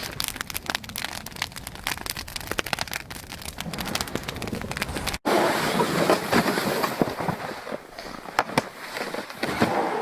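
Snow crunching under boots and a loaded firewood sled dragging over it: a dense run of small crackles over a hiss. The sound breaks off abruptly about halfway through and comes back louder and fuller.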